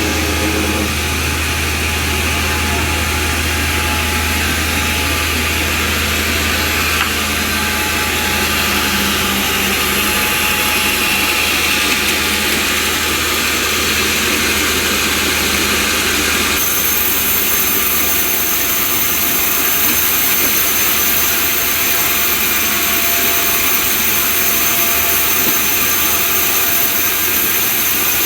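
Homemade band sawmill running with a steady, loud mechanical noise. A low hum under it fades about seven seconds in, and the sound changes abruptly about sixteen seconds in.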